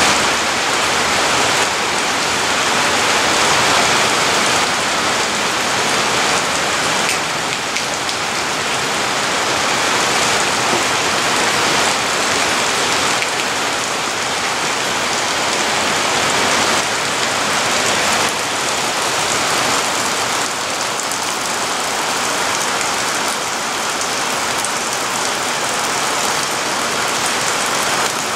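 Heavy rain falling in a loud, steady hiss.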